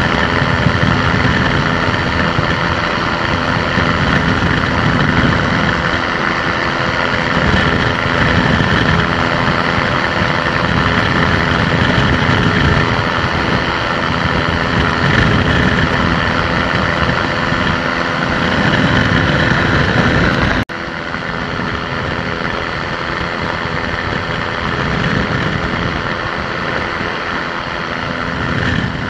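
Microlight aircraft engine running steadily in flight, with rushing air noise over it. About two-thirds of the way through the sound drops abruptly to a slightly quieter, duller level.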